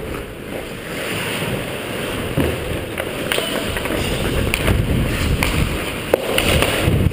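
Ice skates scraping and carving the ice, with wind rushing over a helmet-mounted camera's microphone as the wearer skates. A few sharp clacks of hockey play cut through, the sharpest about six seconds in.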